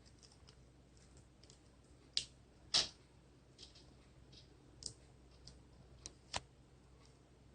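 A few faint, scattered clicks and taps from prying at and handling the display cable connector behind a laptop screen, with the two loudest about two and three seconds in.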